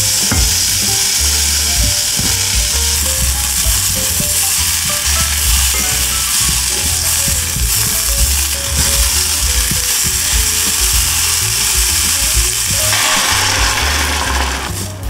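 Sliced onions sizzling as they fry in olive oil in a saucepan, with a spoon stirring them. About thirteen seconds in, water is poured in and the sizzle turns to a coarser, lower hiss.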